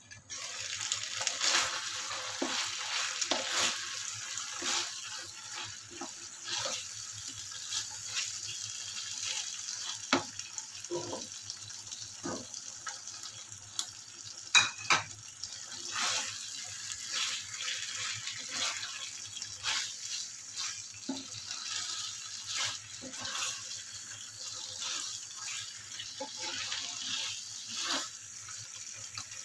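Chicken in white gravy sizzling and bubbling in a frying pan, the sound rising sharply as the lid comes off, while a wooden spatula stirs and scrapes against the pan. A couple of sharp clinks about halfway through are the loudest sounds.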